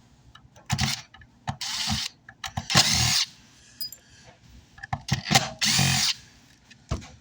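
Power drill run in about five short bursts, driving out the screws of a car amplifier's case.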